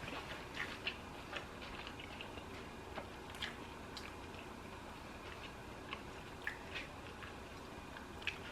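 A person chewing a lettuce-wrapped sandwich close to the microphone: soft, irregular wet mouth clicks, busier in the first second or so and sparser after.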